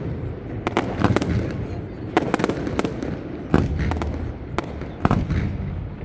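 Fireworks display: sharp bangs going off one after another, some in quick clusters, over a low rumbling echo.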